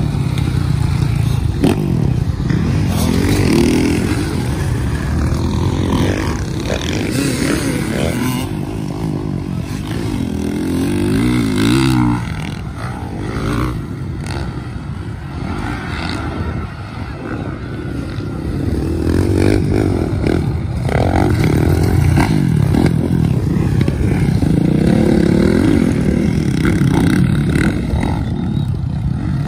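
Motocross dirt bike engines revving up and down as riders work through the jumps and corners, swelling louder as bikes pass by about three seconds in, near the middle, and again over the last third.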